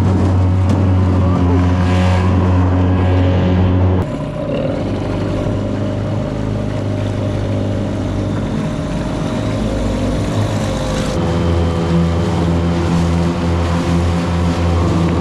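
Small outboard motors on micro boats running steadily at speed, a constant droning engine note over the rush of water. The engine note and loudness change abruptly about four seconds in and again about eleven seconds in.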